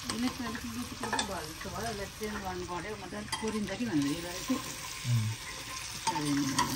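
Goat meat with onion and turmeric sizzling in hot oil in a pressure cooker as it is stirred and turned with a steel ladle, the ladle clicking and scraping against the pot now and then.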